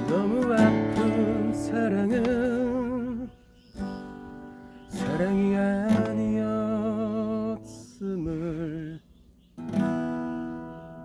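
Acoustic guitar strummed with a voice singing long held notes with vibrato, in two phrases with short breaks a little after 3 seconds and near 9 seconds.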